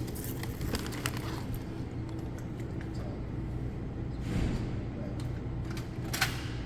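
Plastic water bottles knocking and clattering as they are set into a vending machine's rows: a few scattered knocks, the sharpest about six seconds in, over a steady low hum.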